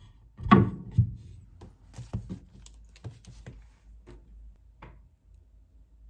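A series of light knocks and clicks: a louder knock about half a second in and another about a second in, then a scatter of smaller taps over the next few seconds.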